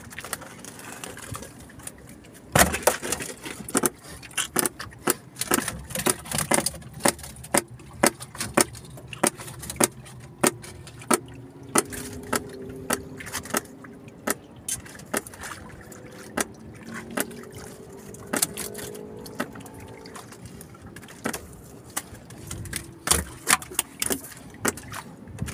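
Irregular sharp knocks and clatter, about one or two a second, from handling the fish trap and the catch on a boat.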